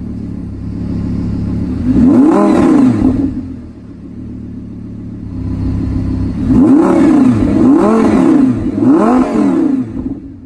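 Audi R8's 5.2-litre V10 breathing through a Rev9 titanium exhaust, idling and free-revved while parked. It revs once about two seconds in, then three times in quick succession from about six and a half seconds. Each rev rises and falls back to idle.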